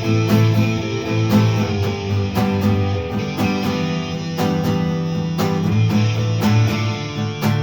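Guitar strumming chords in a steady, even rhythm, with no singing: the instrumental part of a song cover.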